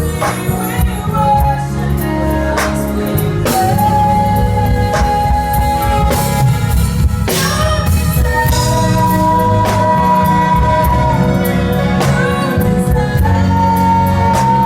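Live gospel band playing with a singer holding long notes, over drums and a heavy bass line.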